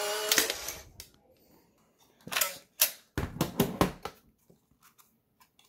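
A Polaroid Spectra instant camera's motor whirring to a stop about half a second in. After a pause come a run of sharp plastic clicks and knocks as the camera is handled and opened.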